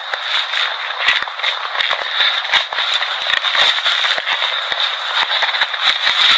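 Loud crackling static: a steady hiss with no low end, full of crackles and pops.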